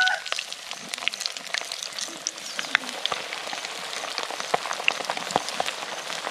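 Coated frog pieces deep-frying in a pan of hot oil: a steady crackling sizzle with scattered sharp pops. A rooster's crow tails off right at the start.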